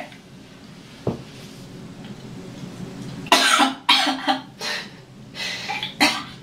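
A woman retching and coughing with her head over a toilet bowl. A run of harsh heaves starts about halfway through, with a longer one first and then several shorter ones.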